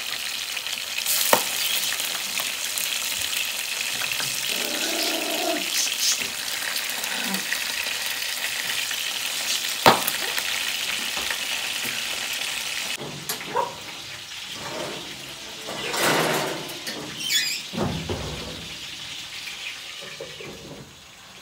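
Lobster halves sizzling in hot oil in a frying pan on a gas stove, the meat still wet and spattering, with a couple of sharp utensil knocks. About thirteen seconds in, the sizzle drops to a fainter level and a few short louder sounds follow.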